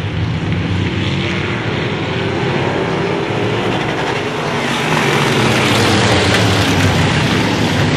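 A pack of modified race cars running at speed on an oval track, many engines at once, growing louder about five seconds in as the cars come past.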